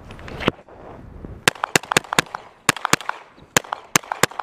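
Semi-automatic gun fired rapidly in the cold: about ten sharp shots, one about half a second in and then quick strings and pairs through the rest, each with a short echo, emptying the magazine.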